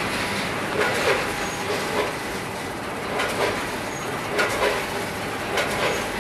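Chips weighing and packaging machine (multihead weigher) running: a steady mechanical rattle with short clattering bursts about once a second as chips are fed and dropped through the hoppers.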